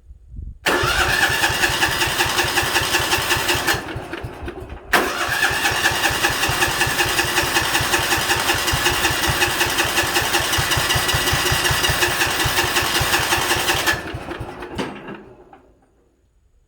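Sears 10/6 lawn tractor engine being cranked by its starter without catching. It makes a steady rhythmic chugging in two tries: a short one of about three seconds, a brief pause, then a longer one of about nine seconds that winds down near the end.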